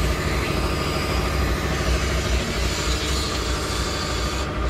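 Air compressor running steadily with a low pulsing drone, under the broad hiss of a DIY sandblasting box in use.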